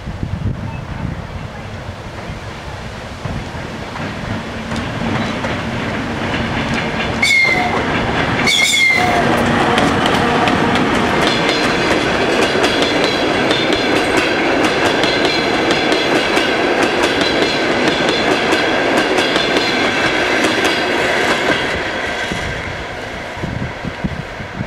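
VL40u electric locomotive and its passenger coaches passing close by, growing louder and then fading as they move away, with wheels clicking over rail joints. Two short, sharp sounds come about a second and a half apart as the locomotive draws near. Then a steady high squeal of wheels on the curving track runs under the clatter.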